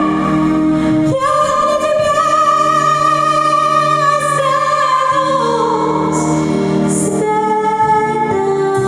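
A woman singing a Russian song over backing music, holding long notes and sliding between them.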